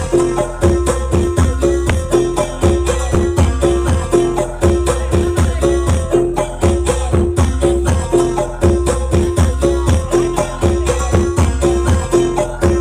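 Loud music with a steady heavy bass beat and busy percussion, played through a large outdoor sound system during a sound check.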